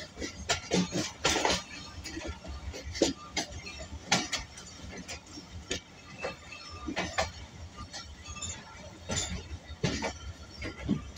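Busy outdoor ambience: scattered distant voices with frequent irregular clinks and knocks over a low rumble.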